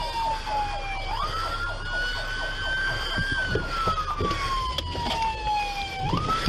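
Police car siren on a slow wail, heard from inside the patrol car. Its pitch sweeps slowly down, jumps back up about a second in, rises and falls slowly again, and jumps up once more near the end, over the rumble of the moving car.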